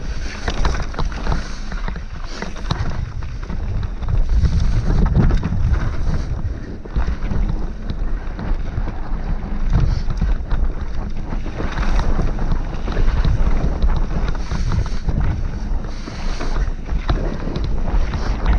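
Wind buffeting a mountain biker's action-camera microphone, over the continuous rattle and clatter of the bike descending a rough, stony dirt trail.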